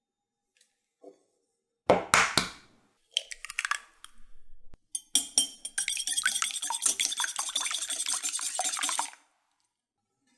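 Kitchen utensils clinking against bowls and dishes: a couple of sharp knocks about two seconds in, some scattered clatter, then about four seconds of rapid, steady clinking.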